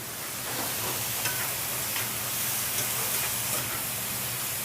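Vegetables sizzling and steaming in a very hot pan with water added, a few light clicks of stirring mixed in. A steady low hum runs underneath.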